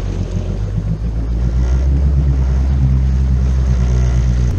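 Personal watercraft (jet ski) engine running, picking up throttle about a second and a half in and holding a steady pitch, then easing off sharply near the end.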